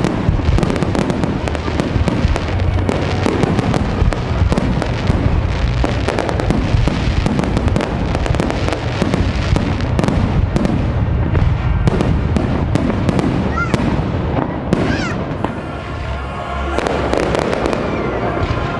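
Fireworks display: a dense run of bangs and crackling shell bursts, thinning out past the middle, with a rising whistle or two.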